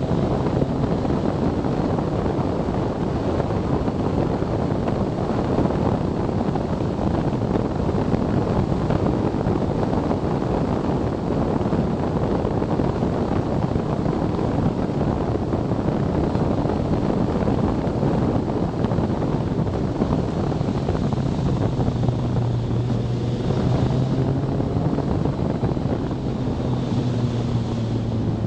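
Wind buffeting the camera microphone at riding speed over the steady running of a BMW K1300S motorcycle's inline-four engine. From about three-quarters through the engine note comes through more plainly, and near the end it starts to rise in pitch.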